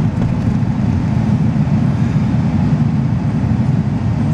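Steady low rumble of a vehicle driving, with no distinct knocks or changes.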